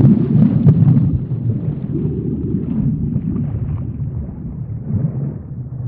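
Underwater ambience sound effect: a deep, steady rush of water with crackling bubbles, loudest in the first second.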